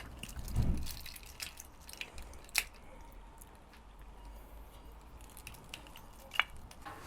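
Quiet handling noises: a soft thump under a second in, then a few scattered sharp clicks, the loudest about two and a half seconds in, over a low hum.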